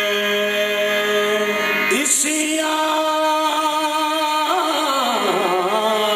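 Qawwali singing: a man's voice holding long notes over a harmonium, stepping up in pitch about two seconds in, then breaking into quick wavering runs near the end.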